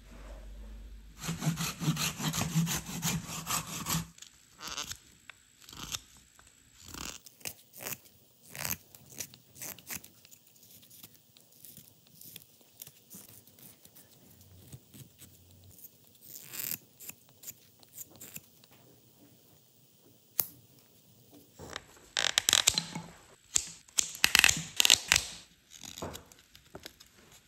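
Carving knife shaving and paring a fresh tree branch: short scraping cuts, a quick run of them about a second in, scattered single strokes through the middle, and another quick run near the end.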